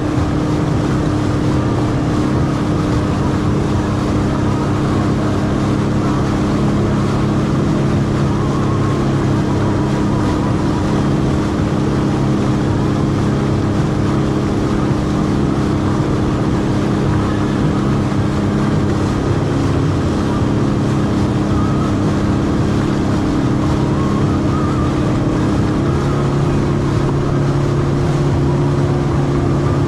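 Jet ski engine running steadily while underway, a constant drone, its pitch rising slightly near the end.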